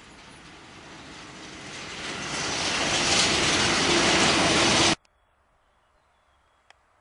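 Red SBB electric locomotive hauling a passenger train, approaching and passing close by. The rush of wheels on rail and air grows steadily louder and peaks as the locomotive goes by. The sound cuts off suddenly about five seconds in, leaving a faint background with one small click.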